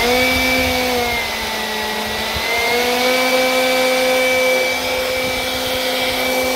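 Greenworks 40V cordless leaf blower running: a steady electric fan whine over rushing air. The pitch sags a little about a second in and comes back up about a second and a half later.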